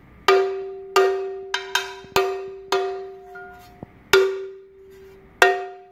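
Damaged hand cowbell struck with a stick about eight times at an uneven pace, each hit ringing on until the next. The bell sounds totally out of tune, a sign of its weld and crack damage.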